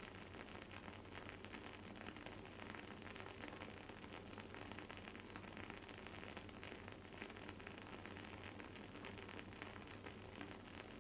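Wooden candle wick burning with a faint, continuous crackle and fizz: many tiny pops a second, packed closely together.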